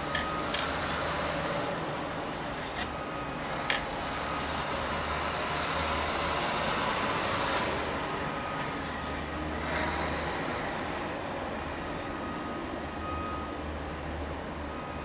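A steady low machine hum under a few sharp clicks in the first four seconds, as turned pen parts are handled and slid off a stopped lathe mandrel.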